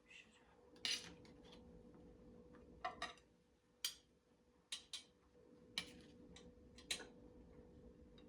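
Light clinks and taps of kitchenware being handled, roughly one a second, over a faint steady hum.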